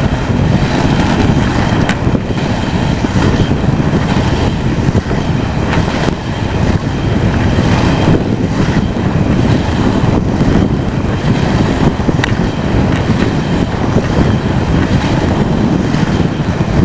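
Inline speed skates rolling on asphalt, a continuous rough rolling noise heaviest in the low end, with a few faint clicks here and there.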